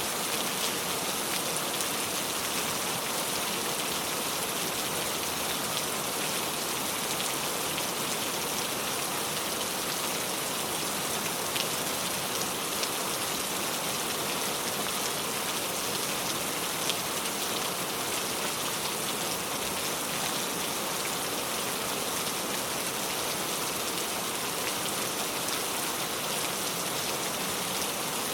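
Steady rain falling and pattering on a surface, with a few individual drop ticks standing out.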